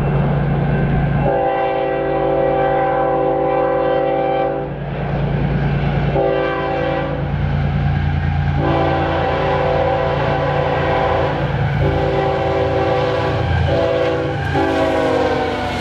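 Union Pacific diesel locomotive's air horn sounding a series of long and short blasts over the low rumble of its engines as the intermodal train approaches. Near the end the horn's pitch drops as the locomotive passes.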